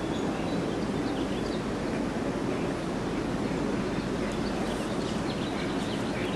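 Steady outdoor background noise, an even rush without a clear source, with a few faint, short high chirps here and there.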